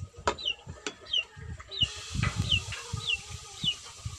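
A chick peeping: short high peeps that fall in pitch, repeated about every half second, over low knocks.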